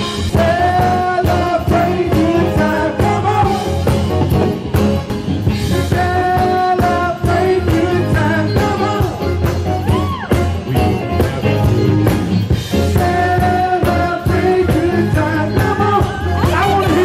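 Live band playing upbeat rock music with a singer and a steady bass line, loud and continuous.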